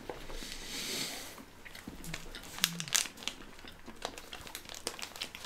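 A snack wrapper crinkling softly as it is handled, with a few sharp crackles scattered through the second half.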